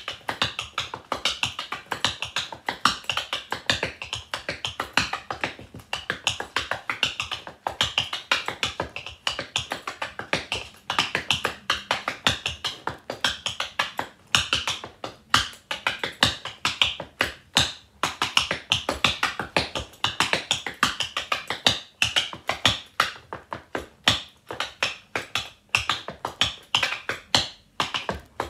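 Rhythm tap dancing: the metal taps of tap shoes striking a wooden floor in fast, continuous patterns of clicks, with a few short breaks between phrases.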